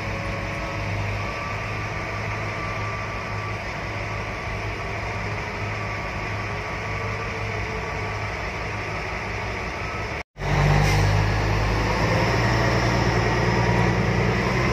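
Caterpillar 777 haul truck's diesel engine running steadily under way, heard from inside the cab. About ten seconds in the sound drops out for a moment and comes back louder, with a stronger low engine note.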